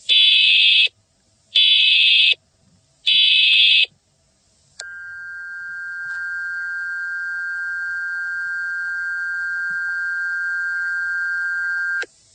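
Emergency Alert System alert tones: three short, harsh bursts of digital header data about a second apart, then a steady two-tone attention signal held for about seven seconds that cuts off sharply near the end.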